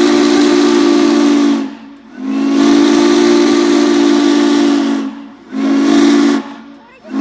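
Norfolk & Western J Class 611's steam chime whistle blowing loud three-note blasts with a hiss of steam: the end of a long blast, a second long blast, a short one, and a long one starting near the end. Together they make the long-long-short-long pattern of the grade-crossing signal.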